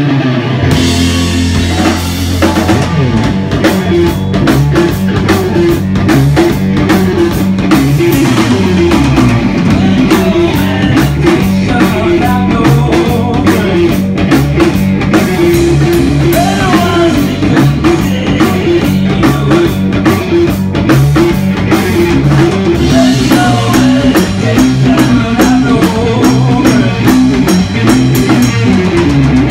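Live rock band playing loud: guitar riffs over a drum kit, with the drums coming in about two seconds in.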